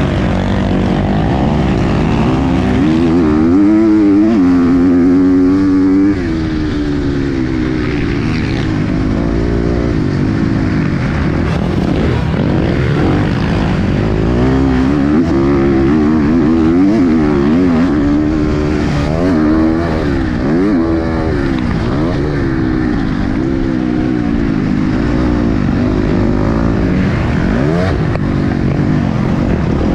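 KTM 250 SX-F single-cylinder four-stroke motocross engine, heard onboard, revving hard and dropping back over and over as the throttle is worked round the track.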